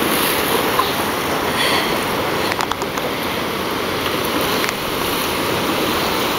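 Steady rush of ocean surf washing over the shore, with a few light splashes of feet kicking through the shallow water.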